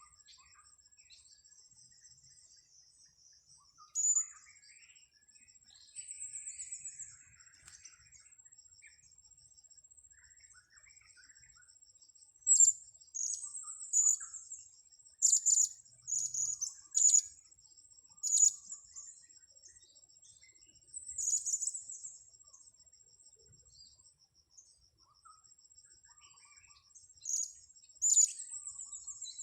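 Blue-crowned hanging parrots (serindit) calling: sharp, high, thin chirps in short bursts, thickest in the middle and again near the end. A steady high-pitched tone runs underneath.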